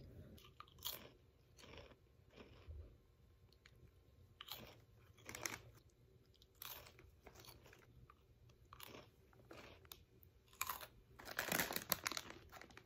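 A person biting and chewing a crunchy snack close to the microphone: irregular crisp crunches, bite after bite, with the loudest crunches near the end.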